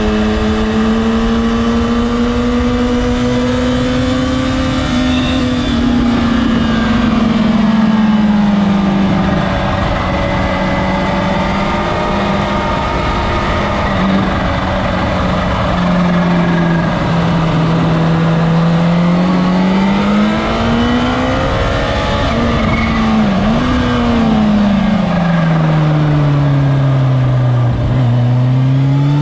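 Sport motorcycle's engine heard on board while lapping a race circuit, its pitch rising and falling with throttle and gear changes through the corners. The pitch sinks lowest near the end, then climbs again.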